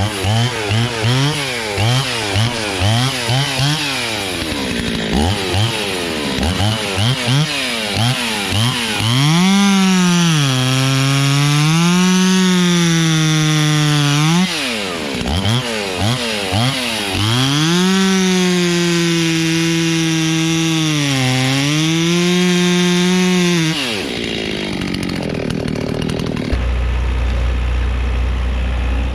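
Two-stroke chainsaw revved in short repeated blips, then held at full throttle through two long cuts, its pitch sagging and recovering under load as it bucks stumps off logs. It drops off near the end, and a lower, steady engine hum takes over.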